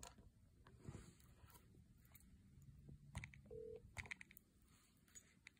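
Near silence while a smartphone call connects: a few faint clicks and a short faint tone about halfway through, with no voice yet on the line.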